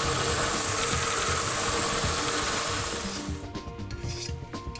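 Belt sander grinding the edge of a cast bronze part: a steady rasping hiss that cuts off about three seconds in. After it, a few faint strokes of a hand file on the bronze.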